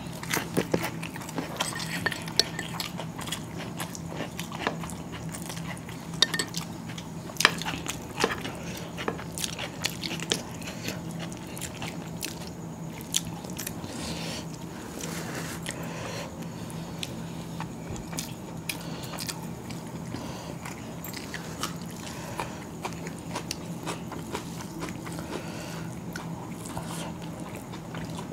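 Two people eating chicken biryani by hand: chewing and lip smacks, fingers working the rice, and frequent small clicks and taps against the plates, busiest in the first half. A steady low hum runs underneath.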